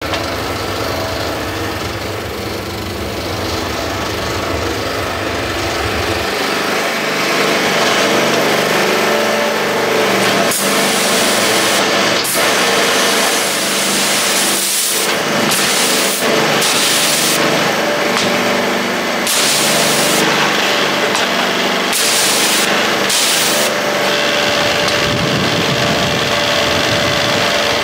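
Pressure washer running, with its lance blasting water onto a concrete pad. From about ten seconds in, the hissing spray comes in repeated bursts as the trigger is pulled and released.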